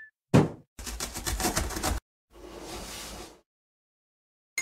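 Cartoon sound effects for a dropping cardboard box: a heavy thud about a third of a second in, then about a second of rapid rattling, then a softer whoosh-like swell.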